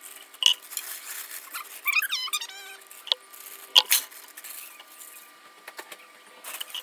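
Frozen green beans tipped into a metal saucepan, a few sharp clattering knocks about four seconds in, with smaller knocks of pans and utensils before it. A brief high wavering whine about two seconds in, over a faint steady hum.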